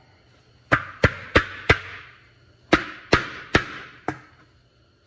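Eight hammer blows in two groups of four, each followed by a short ring, as something is driven into the shield.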